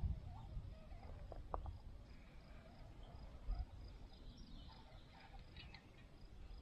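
Faint outdoor ambience: low wind rumble on the microphone, with a few scattered bird chirps and a faint, evenly repeating high insect-like chirp.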